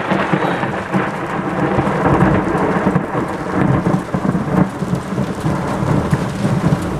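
Thunder rumbling from a very close cloud-to-ground lightning strike, swelling and fading, over heavy rain falling on the car.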